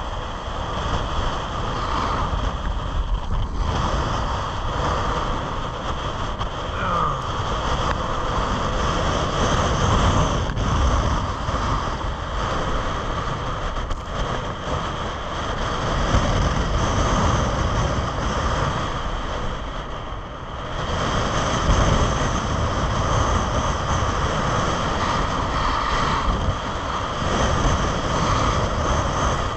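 Wind rushing over the camera's microphone as the skier goes downhill, with skis sliding and scraping on packed snow. It is a steady rush that eases briefly about twenty seconds in.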